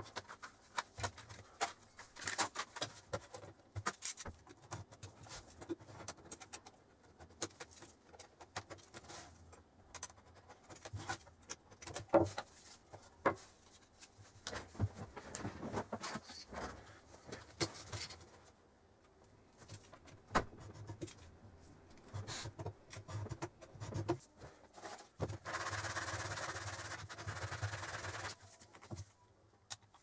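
Small objects being handled on a tabletop: scattered clicks and light knocks as a metal tin, a plastic lid and tools are picked up and set down. A steady rasping noise lasts about three seconds near the end.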